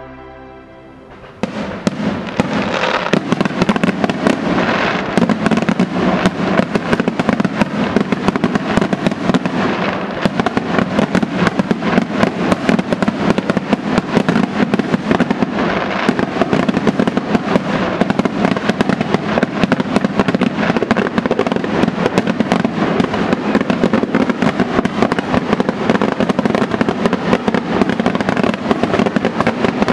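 Fireworks display: a dense, continuous barrage of bangs and crackling reports that starts suddenly about a second and a half in, after the quiet tail of soft music.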